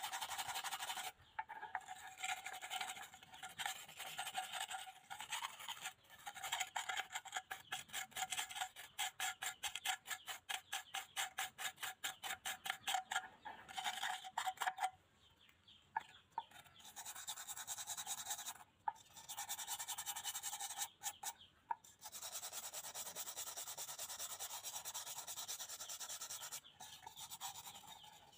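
Stiff brush scrubbing the rusty, foamy metal of an old alcohol stove's burner in quick rhythmic strokes, stopping briefly a few times.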